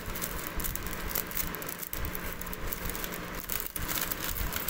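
Clear plastic packaging crinkling and rustling as the embroidered cloth dress lying on it is handled.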